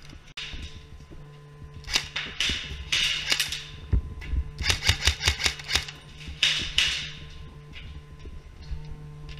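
Airsoft guns firing in rapid bursts of sharp clicks, about four bursts between two and seven seconds in, over a steady low hum.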